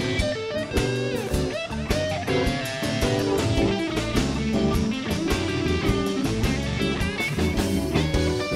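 Live blues band playing: electric guitar lead with notes bent up and down over bass and a steady drum beat.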